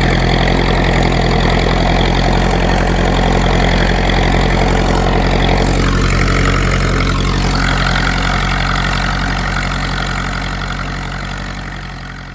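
Ferguson T20 tractor's four-cylinder engine running steadily as it pulls a two-furrow plough through the soil, fading out near the end.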